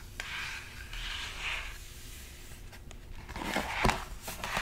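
A hand brushes over the cardboard page of a children's board book, then turns the stiff page with a rustle and a sharp tap near the end, heard close to the microphone.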